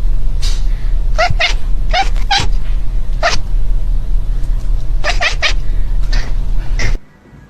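A cat giving a series of short, high meows, some in quick twos and threes, over a steady low hum. Everything cuts off abruptly near the end.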